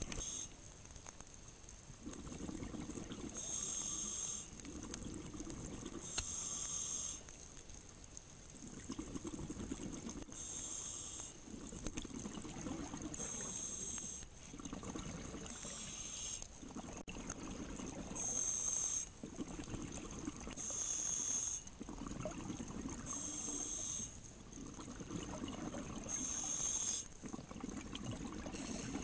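Scuba diver breathing through a regulator underwater: a high hiss as air is drawn in alternates with a low burble of exhaled bubbles, a breath every few seconds.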